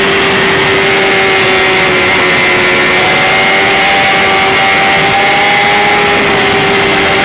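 2010 BMW S1000RR's inline-four engine running flat out at high revs near the redline at top speed, its high engine note holding steady under a heavy rush of wind noise.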